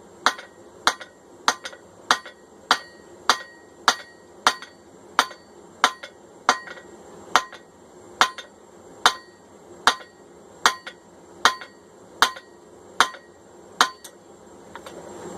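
Hand forging hammer striking a hot bar of 1045 steel on an anvil: a steady series of about twenty blows, roughly three every two seconds, each with a short metallic ring.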